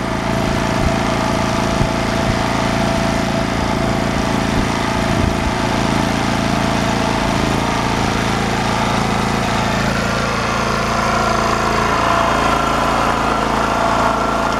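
Champion portable generator's small gasoline engine running steadily just after starting on a newly fitted carburetor, fairly quiet with its air filter assembly on.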